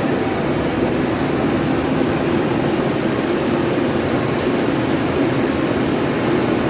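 An engine running steadily at an even speed, a continuous drone with no change in pitch or level.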